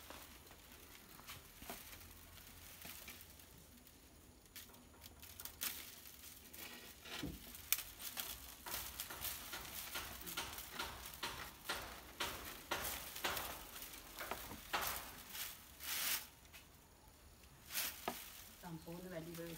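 Dry coconut-leaf midribs of an ekel broom rustling and crackling as coir string is pulled tight and wound around the bundle by hand. The sound is faint and comes as irregular short crackles, thicker from about four seconds in.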